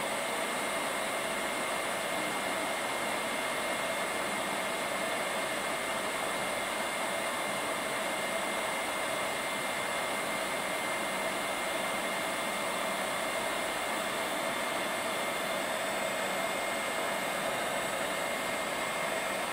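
Hot air welding machine's blower running steadily, a constant rush of air with a thin high whine, as its heater warms up to the 400 °C set temperature.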